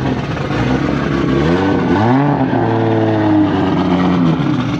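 A car engine revs up quickly about a second and a half in, holds its pitch for a second or so, then eases back down near the end.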